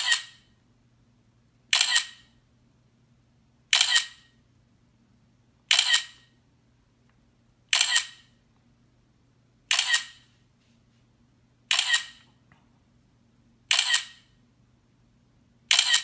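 Smartphone camera shutter sound, nine quick double clicks about two seconds apart: the nine shots of a 3x3 panorama taken automatically by a DJI Osmo Mobile 3 gimbal as it turns the phone between frames.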